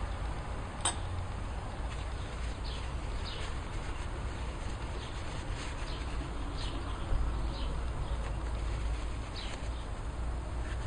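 Scattered short, high, falling chirps like small birds calling in the background, over a steady low hum, with one sharp click about a second in.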